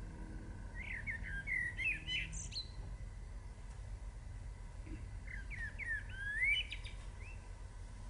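A songbird singing two short phrases of whistled, gliding notes, about four seconds apart, over a low steady rumble.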